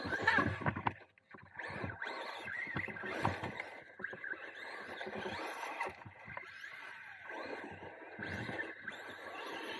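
Traxxas Rustler 2WD radio-controlled truck driven hard: its motor whines, rising and falling in pitch as it speeds up and slows, with the tyres scrabbling over loose dirt and gravel.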